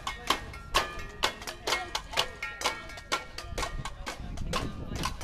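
Background music made of quick, sharp percussive hits with short held notes between them.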